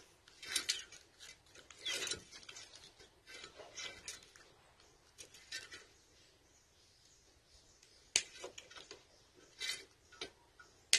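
Scattered light rustling, scraping and clicking as the stiff lead wires and copper windings of a pool pump motor's stator are handled with pliers, with one sharper click late on.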